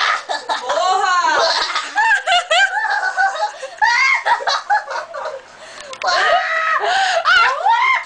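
A young woman's voice, wordless sliding vocalizing and laughter, aimed into the blades of a running electric fan so that it comes out warbled.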